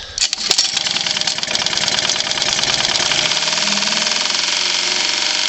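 Honda B100 four-stroke outboard motor catches right at the start and runs steadily with a fast, even knock. The owner takes the knock for a worn connecting rod rather than lifters; the flywheel has free play and there is bearing babbitt in the oil.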